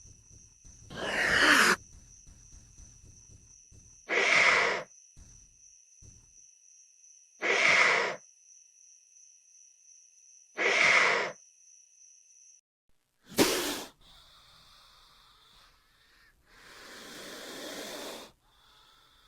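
Troodon creature sound effects: four short noisy calls, each about a second long and about three seconds apart, then a sudden short sharp call and, after a pause, a longer, quieter call that swells and cuts off.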